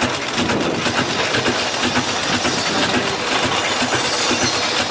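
Steam roller running as it drives slowly: a steady mechanical clatter made of rapid, evenly repeating ticks from the engine's motion.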